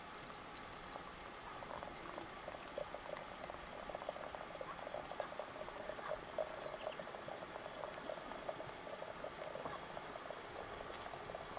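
Hot water trickling from a samovar's tap into a porcelain teapot: a thin stream splashing and bubbling with a steady patter of tiny ticks. A thin high buzz comes and goes in stretches of a few seconds.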